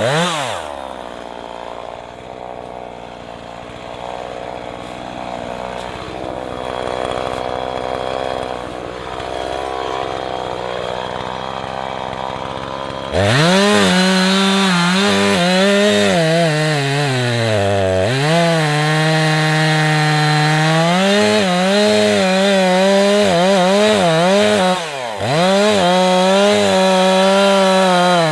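Husqvarna 340e two-stroke chainsaw drops back to a low idle for about thirteen seconds. It is then revved to full throttle and cuts into wood, its pitch dipping and recovering as the chain bogs under load.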